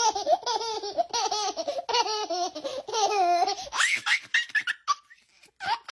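Young child laughing hard in quick, repeated high-pitched bursts, breaking into a few short rising squeals near the end.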